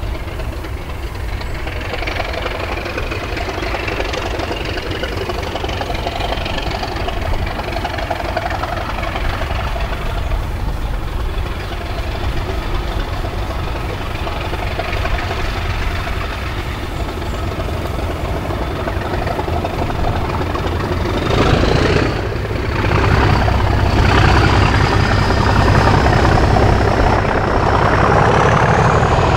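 English Electric Class 37 diesel locomotive working under power as it approaches hauling passenger coaches: a steady heavy engine note with a high whine that climbs in pitch. It grows louder about two-thirds of the way through as the locomotive nears.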